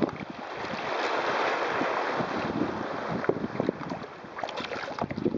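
Water rushing and splashing along the hull of a wooden sailing kayak as it surfs on lake waves, with wind buffeting the microphone. The rush swells over the first couple of seconds and then eases, with scattered small slaps of water.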